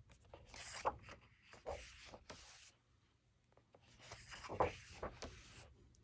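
Thick paper pages of a coloring book being handled and turned by hand: several faint soft swishes and rustles, with a few light ticks of the paper.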